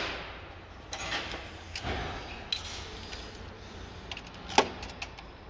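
Scattered light metallic clicks and clinks of hand tools and loose bolts while a valve cover is being unbolted, with one sharper knock about four and a half seconds in.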